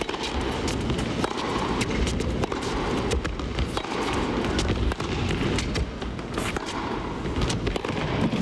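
Tennis rally: sharp racket-on-ball strikes and ball bounces at irregular intervals over a steady background of arena crowd noise.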